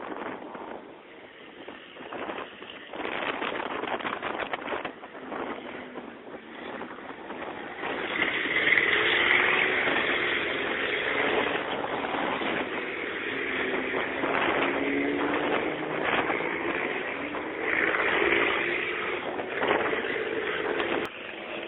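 Racing trucks' engines running past on a wet track, with a hiss of tyre spray. It grows louder about a third of the way in, and the engine note slides up and down as they pass.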